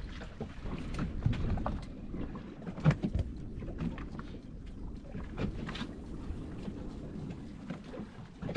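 Steady wind and water noise aboard a fishing boat, with a few scattered knocks and clicks.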